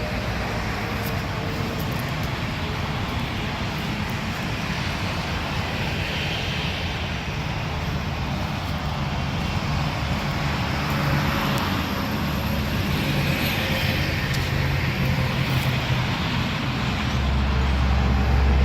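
John Deere 850K bulldozer's diesel engine running steadily, with a low rumble that grows louder near the end.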